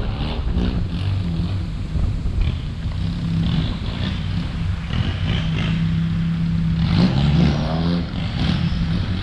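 Off-road 4x4 vehicle engine running under load on a dirt track with a steady low drone, revving up about seven seconds in.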